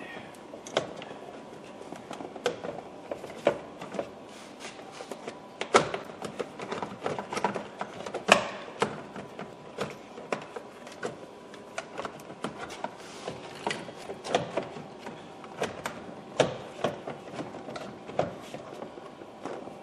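Irregular plastic clicks and knocks of hands working a car's steering column trim shroud loose from its clips, with a few sharper snaps.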